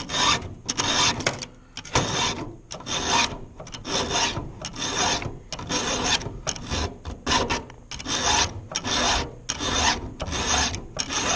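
Round chainsaw file rasping in steady back-and-forth strokes, about two a second, on a saw-chain cutter. The file is filing out the cutter's gullet behind the top plate.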